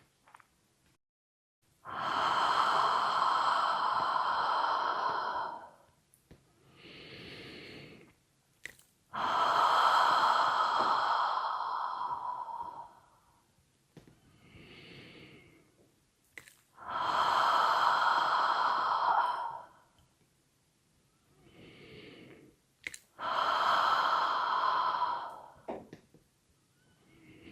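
A person making the qigong heart healing sound: a long, breathy, sigh-like exhale, made four times for about three seconds each, with quieter in-breaths between.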